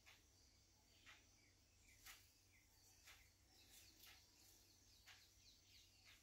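Near silence: faint night insects chirping, with a short chirp about once a second and a few fainter chirps in between.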